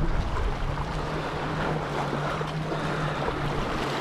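Wind buffeting the microphone with a low rumble, over water lapping, and a steady low hum underneath.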